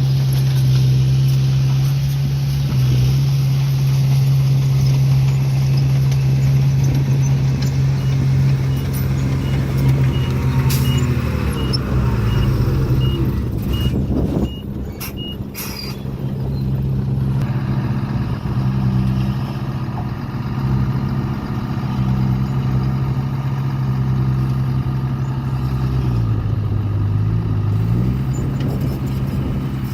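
Heavy diesel engine of construction machinery running steadily, its pitch sagging and recovering twice. A reversing alarm beeps evenly for several seconds in the middle, with a few sharp clicks near its end.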